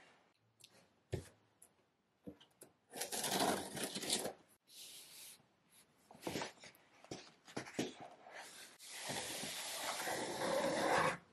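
A large cardboard shipping box being opened and unpacked: a knock about a second in, then bursts of cardboard scraping and rustling. Near the end comes a long sliding rustle, the loudest sound, as a suitcase in a cloth dust bag is pulled from the box; it stops suddenly.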